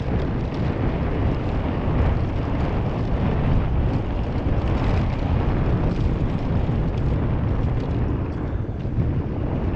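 Wind noise buffeting the microphone of a mountain bike's on-board camera during a fast downhill ride, mixed with the tyres running over dirt and gravel and the rattle of the bike.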